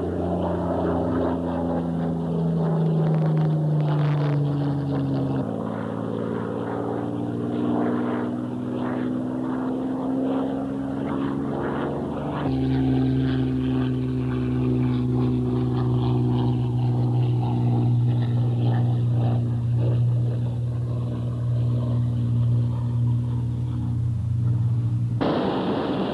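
Spitfire's V12 piston aero engine droning in flight: a steady pitched hum that slides slowly down in pitch over the first five seconds and shifts abruptly in pitch about five and twelve seconds in. Just before the end it changes suddenly to a harsher rushing noise.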